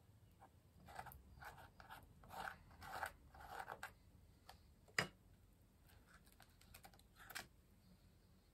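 Plastic stencil being peeled up and handled against a paper journal page: a run of soft scratchy rustles, then a sharp tap about five seconds in and a lighter one near the end.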